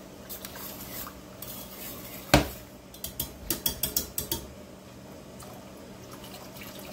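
Wire whisk clinking and scraping against a stainless steel skillet while gravy is whisked. There is one sharp knock a little over two seconds in, then a quick run of clinks for about a second and a half.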